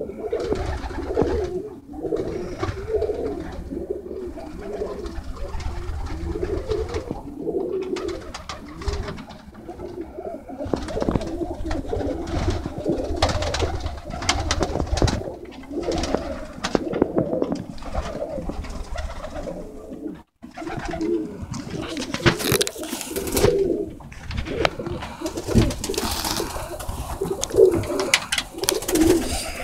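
Many tippler pigeons cooing together in a loft, a dense low warbling, with scattered sharp clicks and rustles that come thickest in the second half.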